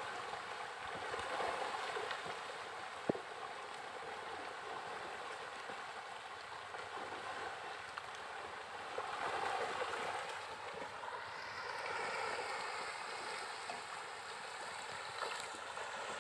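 Steady, faint splashing and rushing of pond water, from fish churning the surface as they feed. A single sharp tick about three seconds in.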